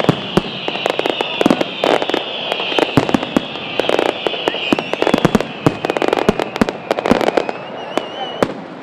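Aerial firework shells bursting in quick succession, a dense run of sharp bangs and pops, over a high hissing tone that slowly falls in pitch.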